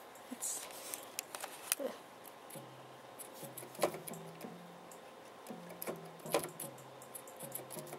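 Electronic keyboard played one note at a time with a single finger: slow, low notes stepping up and down between a few pitches, starting about two and a half seconds in, with sharp clicks and taps from the keys and hands throughout.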